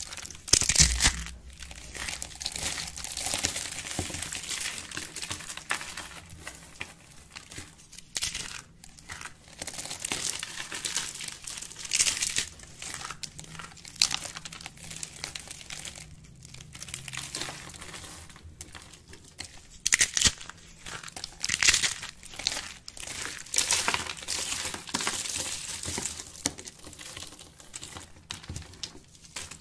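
Dry soap being crushed by hand: rolled soap curls and handfuls of thin soap shavings crinkling and crackling between the fingers, with several louder crunches.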